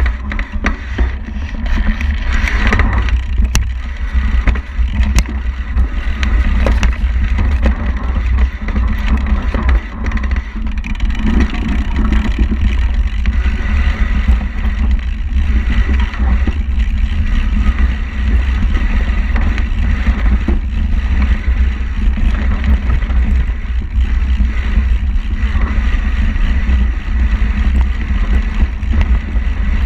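Wind rumbling heavily on a bike-mounted camera's microphone during a fast ride down a dirt forest trail, with the bike rattling and clicking over the rough ground.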